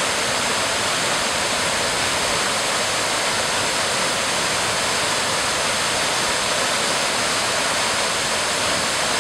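Daisen Falls pouring: a loud, steady rush of falling water with no break or change.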